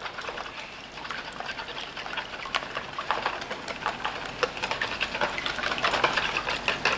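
Wire whisk beating a runny egg-and-cream custard mix in a plastic bowl: quick splashing with rapid clicks of the whisk against the bowl, growing louder towards the end.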